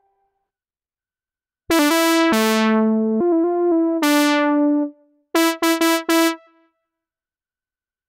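Cherry Audio Mercury-6 software synthesizer, an emulation of the Roland Jupiter-6, playing its 'Brassy Lead' preset: a short one-note-at-a-time phrase of bright, buzzy notes that start after about a second and a half, their brightness falling away after each attack, followed by four short staccato notes.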